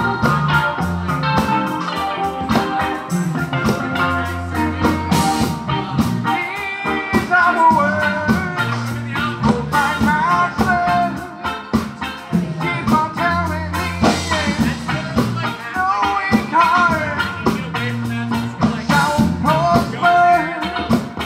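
Live rock band playing drum kit, electric guitar and bass guitar, with a singer coming in about six seconds in.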